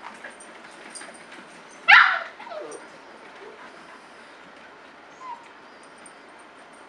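A Samoyed gives one loud, sharp yelp about two seconds in, falling in pitch and trailing off, and a brief faint squeak a few seconds later, during rough play.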